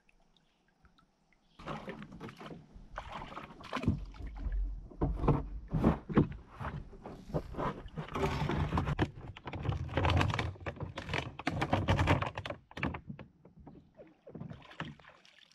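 Plastic kayak being manhandled over a fallen tree trunk: the hull knocks, thuds and scrapes against the wood over and over. It starts about a second and a half in and dies away near the end.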